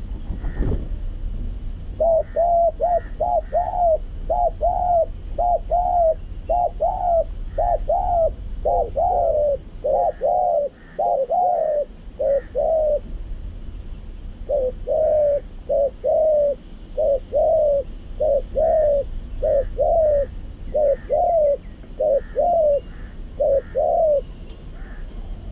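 Spotted doves cooing: a long run of short, rounded coo notes, about two a second, broken by a brief pause midway. Faint higher chirps from smaller birds sound behind them.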